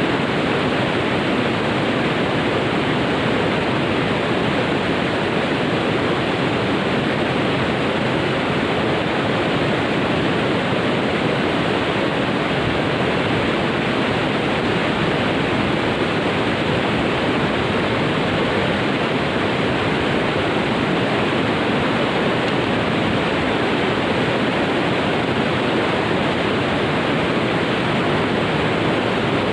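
Steady rush of fast-flowing water, unchanging throughout.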